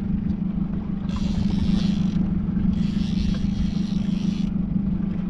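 Tender's outboard motor running steadily at low trolling speed, a constant low hum and rumble, with a hiss that comes and goes in patches of about a second.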